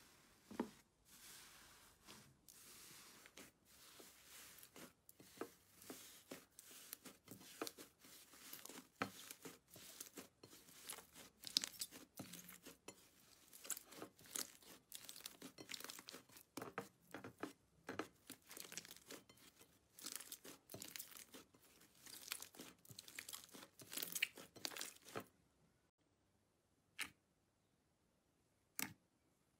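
Thick, sticky, mud-like slime being pressed, torn and kneaded by hand, giving a dense run of irregular crackles and tearing sounds. It stops about 25 seconds in, leaving a few separate clicks.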